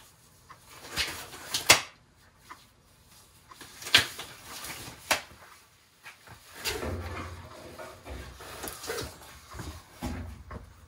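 Rustle and sharp snaps of gloves being pulled onto the hands. Then knocks, rustling and low thuds as a forged steel crankshaft is picked up and handled over an engine block.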